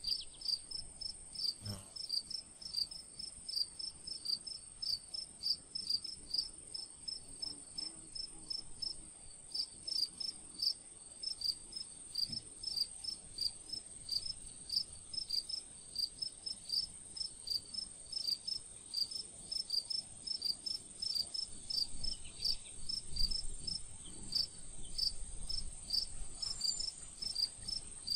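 Insects chirping in a steady, regular rhythm of short high chirps, about three a second, over a continuous high-pitched trill.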